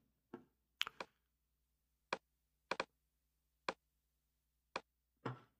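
Faint computer mouse clicks, about nine short sharp clicks spread unevenly, a couple of them in quick pairs, as locators and a loop region are set in a music program.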